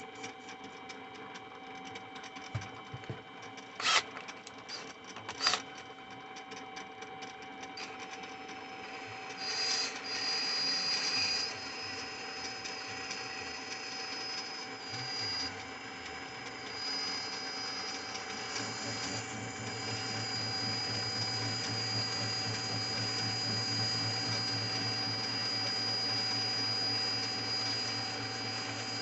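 A power drill running steadily with a thin high whine, turning a machine's cross-feed screw, after two sharp clicks a few seconds in.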